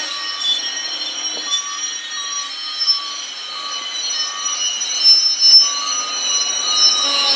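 Amtrak Superliner bi-level passenger cars rolling slowly over curved track, their steel wheels squealing against the rails in several high, steady tones, with a few short knocks from the running gear.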